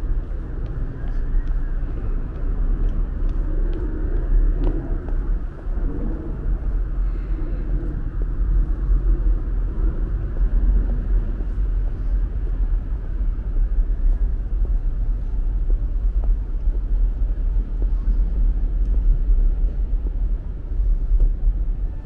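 Wind buffeting the microphone: a steady low rumble that keeps rising and falling in loudness.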